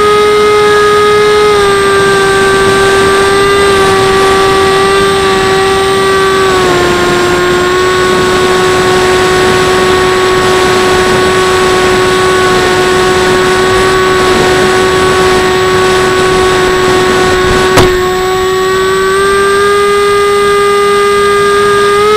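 Mini Skywalker's electric motor and pusher propeller whining steadily under a rush of wind noise. The pitch drops in two steps early on, holds level, and climbs again near the end. One sharp click is heard about three quarters of the way through.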